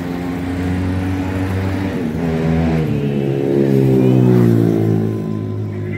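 A motor vehicle's engine running close by, its hum dropping in pitch as it grows loudest about four seconds in, then easing off.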